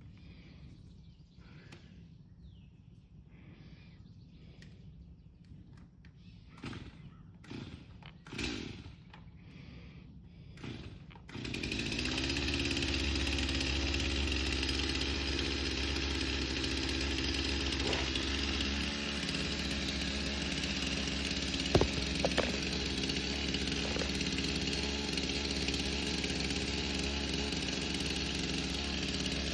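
A few soft short sounds, then about eleven seconds in a chainsaw starts up and runs steadily at an even pitch, with a couple of sharp clicks partway through.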